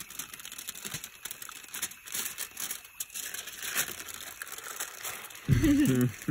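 Aluminium foil crinkling and crumpling as it is wrapped around a catfish. Near the end comes a short, loud vocal sound from a man that steps down in pitch.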